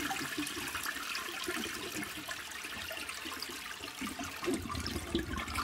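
Toilet flushing: a steady rush of water with gurgling, swelling louder near the end.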